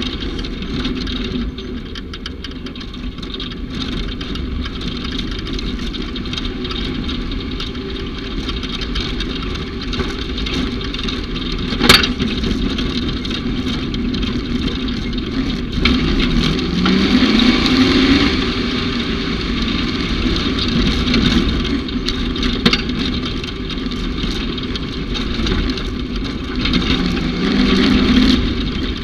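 A utility vehicle's engine runs over rough ground amid a steady rush of noise and scattered knocks. The engine revs up, rising in pitch, a little past halfway and again near the end. One sharp bang comes about twelve seconds in.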